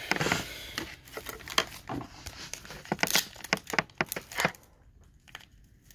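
Foil wrapper of a Donruss Optic football card pack and loose trading cards being handled: a run of short crinkles and light ticks that dies away about a second before the end.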